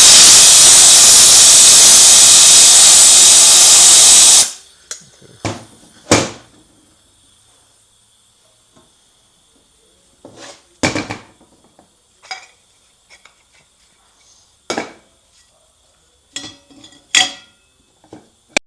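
Compressed-air blow gun blasting a loud, steady hiss for about four and a half seconds, then cutting off sharply. Scattered metallic clinks and knocks follow as transmission parts are handled.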